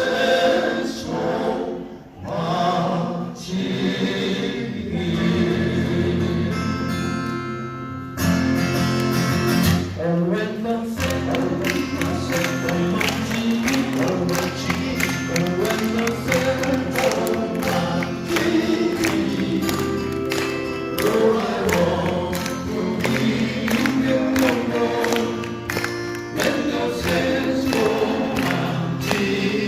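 Male vocal quartet singing in close harmony. Acoustic guitars strum in rhythm from about eight seconds in.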